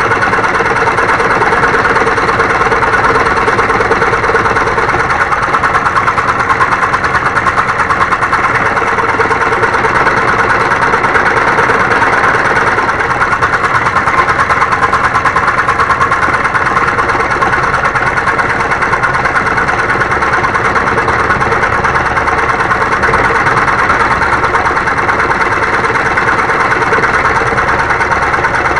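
Homemade scroll saw running steadily, its blade moving rapidly up and down as it cuts through wood.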